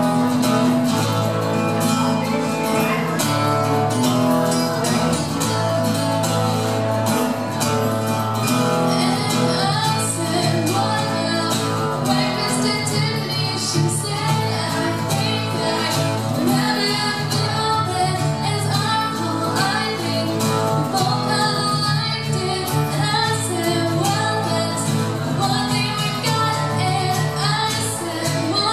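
Live acoustic band: two acoustic guitars strumming chords while a woman sings the lead vocal into a microphone.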